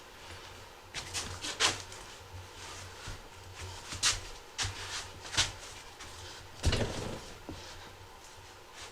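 Short scrapes and knocks from handling an ATV tire and rim on a manual tire changer, about six in all, the heaviest a dull knock near the end.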